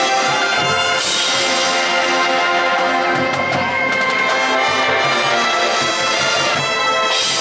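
Marching band playing: the brass section holds full chords over drum hits.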